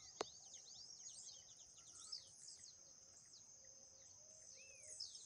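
Faint birds chirping: many short, quick falling chirps, over a steady high-pitched ringing. A single click comes just after the start.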